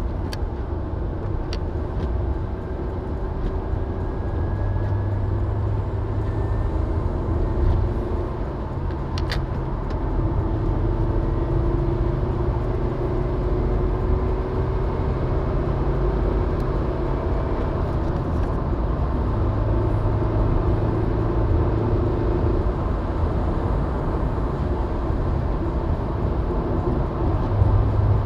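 A car driving on a wet road: a steady low rumble of engine and tyre noise, with the engine note drifting gently up and down and a few light clicks.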